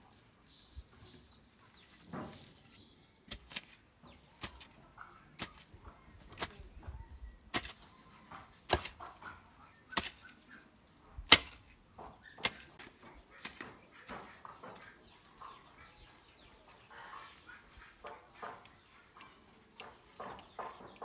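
A hand hoe chopping into soft, damp soil, one dull strike about every second, the loudest a little past the middle, as the ground is dug over.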